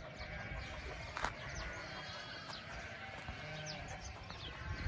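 Faint sheep bleating in the background, a few calls.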